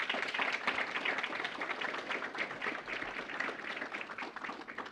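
Audience applauding: many hands clapping, dying away near the end.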